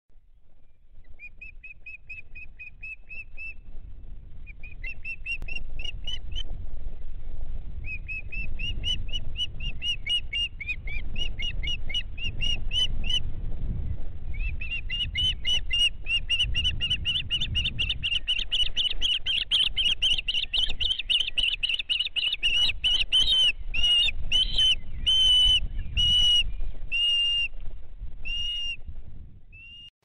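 Osprey calling: long, rapid series of high whistled chirps strung together, coming in bursts at first and then running on almost without a break, before slowing into separate loud calls near the end. A low rumble runs underneath.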